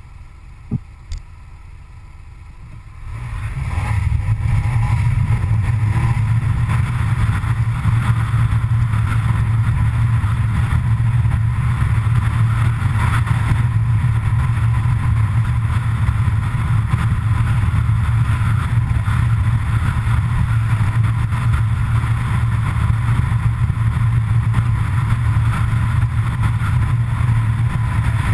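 Steady rumble of wind and road noise from a vehicle driving at speed, picked up by an outside-mounted camera. It is much quieter at first, with two faint clicks about a second in, then rises sharply about three seconds in and holds steady.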